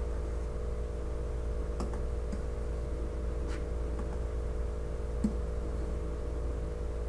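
Steady low electrical hum with a few scattered faint clicks and taps from writing.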